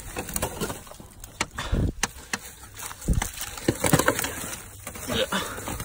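Dry leaves and sticks crackling and a rusted sheet of tin scraping and knocking as it is pried up off the leaf litter. Irregular clicks and a few dull thuds, with the loudest handling about two and four seconds in.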